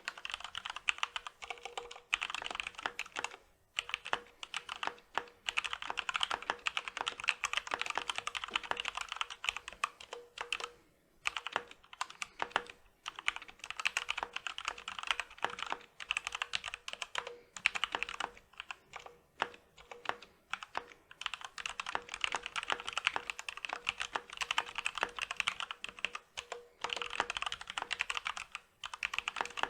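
Continuous fast typing on a Corsair K65 RGB Rapidfire mechanical keyboard with linear Cherry MX Speed Silver switches and stock ABS keycaps, rapid key clacks with a few short pauses between bursts.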